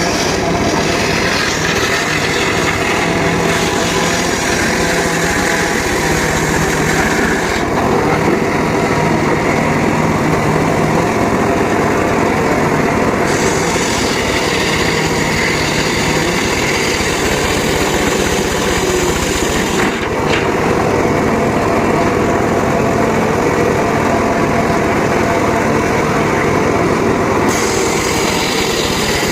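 Homemade circular saw rig running steadily while sawing teak wood, its engine-like drone continuous and the higher part of the sound rising and easing in stretches of several seconds as the blade cuts.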